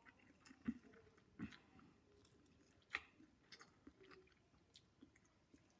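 Faint mouth sounds of someone chewing noodles: scattered soft clicks, with one sharper click about three seconds in.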